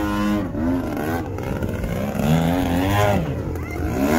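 RC model airplane's propeller engine running in flight, its pitch sweeping up and down several times as the plane manoeuvres.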